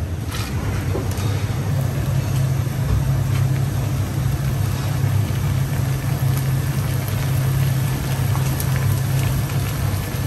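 Keropok (prawn crackers) deep-frying in a wok of hot oil: a steady sizzle with small crackles, over a constant low drone.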